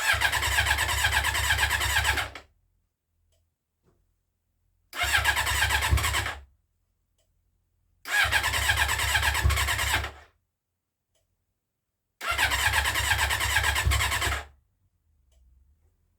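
Yamaha XJ600's electric starter cranking the air-cooled inline-four engine in four separate attempts of about two seconds each, with silence between them and no running in between: the engine, cold after standing about eight months, does not catch.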